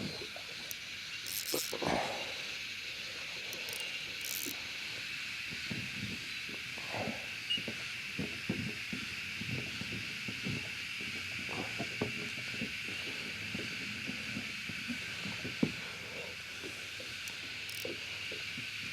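Cicadas droning steadily in the trees, a constant high hiss-like chorus, with scattered soft knocks and clicks close by.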